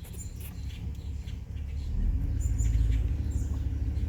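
A vehicle's engine rumbling low and steady, growing louder about two seconds in, with faint bird chirps above it.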